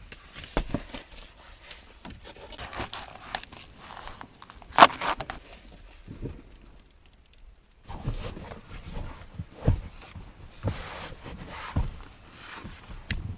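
Rustling, scraping and scattered knocks of belongings being handled and moved about, with one sharp click or knock about five seconds in.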